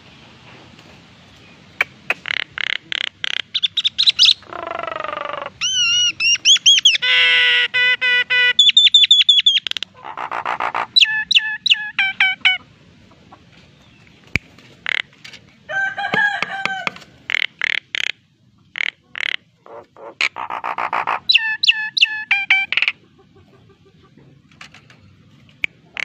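Common myna singing in full voice: phrases of rapid clicking and rattling notes, harsh chatter and wavering whistles, broken by short pauses, with a quieter spell about halfway through.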